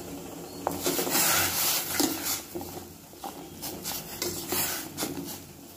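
Slotted spoon stirring soya chunks in a stainless steel pot of boiling water, scraping against the pot over the bubbling of the boil; loudest about a second in, then fainter.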